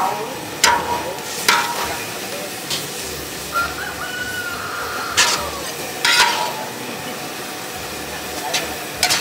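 Food sizzling while being stirred in a metal pan, the utensil knocking and scraping against the pan at irregular intervals, each knock ringing briefly.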